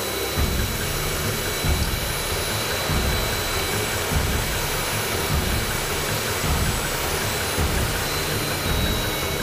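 Jet turbine running: a loud, steady rushing noise with a thin high whine above it and an irregular low rumble pulsing underneath.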